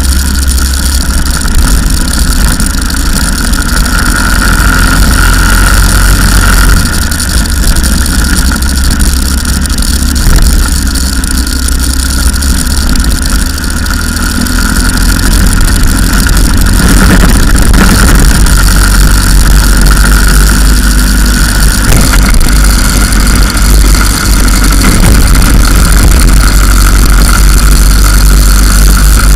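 Go-kart engine running flat out on a circuit, recorded very loud from onboard, its note rising and falling with speed through the corners over a heavy low rumble.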